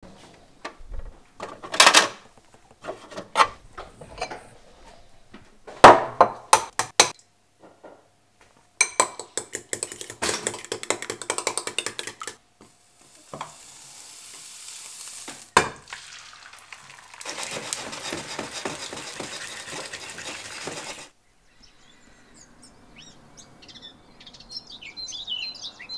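Kitchen clatter of a fridge door and dishes, then a fork whisking eggs in a bowl with rapid clinking strokes. A steady sizzle of frying follows, and near the end birds chirp.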